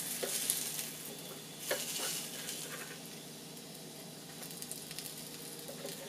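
Lamb burgers and their fat sizzling on the hot plates of a George Foreman electric contact grill while a non-stick spatula lifts them off, with a few light scrapes and taps of the spatula in the first two seconds. The sizzling eases a little after about three seconds.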